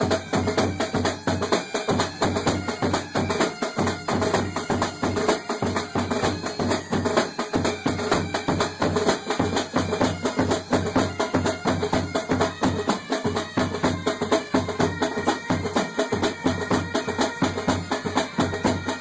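Music with a steady, busy drum and percussion beat.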